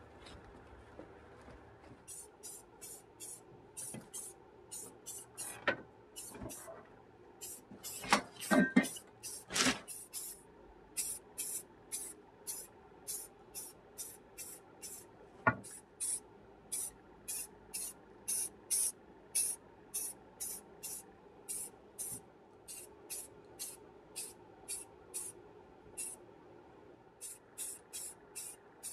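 Aerosol spray-paint can sprayed in dozens of short hisses, one or two a second, painting artificial leaves green. A few louder knocks come in between, about a third of the way through and again near the middle.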